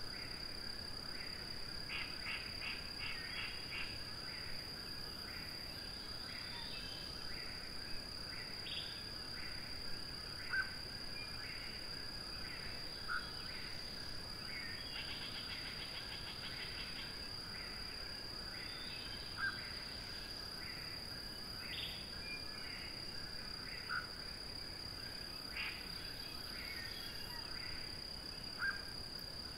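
Eastern whip-poor-will song in a field recording: short calls repeated every few seconds over a steady, high-pitched insect trill, with other chirping calls scattered throughout.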